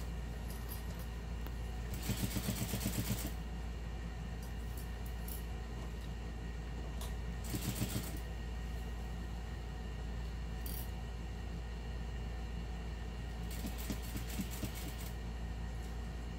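Juki industrial sewing machine stitching a seam in short bursts: a quick run of rapid needle strokes about two seconds in, a brief one around the middle, and another near the end, over a constant low motor hum.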